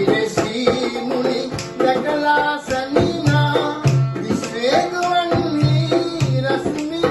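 Instrumental music, the opening of an old Sinhala song: a shifting melody line over steady hand-drum strokes with a repeated deep bass thump.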